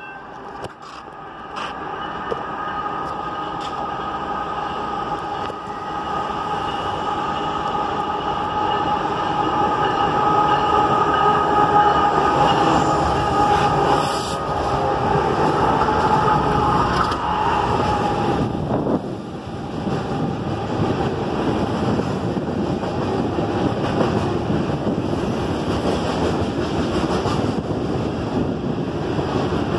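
A CSX diesel-hauled freight train approaches and passes close by. The locomotives grow louder to a peak about halfway through, with steady high-pitched tones over their engine sound. Then loaded hopper cars roll past with a steady rumble of wheels on rail.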